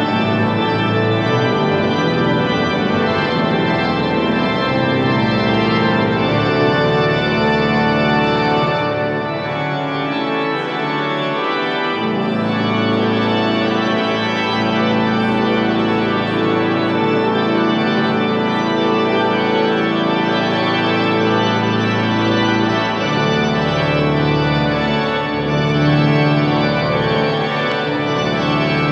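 Church organ music: full sustained chords, the notes changing every second or two, with deeper bass notes coming in about twelve seconds in.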